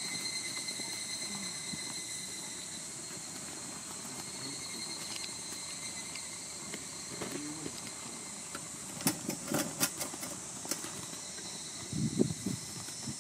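Insects droning steadily in summer heat, a continuous high buzz with thin high whines running through it. A few sharp clicks come about two-thirds of the way in, and a short low sound near the end.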